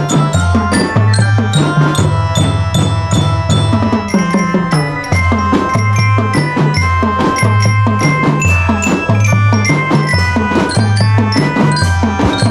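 Children's marching drum band playing a tune: bell lyres ring out the melody in quick struck notes over a steady beat from the drums.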